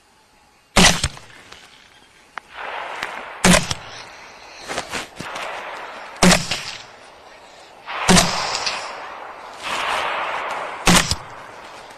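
Five rifle shots fired at a group of wild boar, spaced about two to three seconds apart, each a sharp crack. Between the shots there is a rushing, rustling noise.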